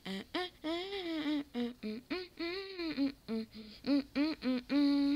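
A high voice humming a tune in a quick string of separate notes, ending on a longer held note.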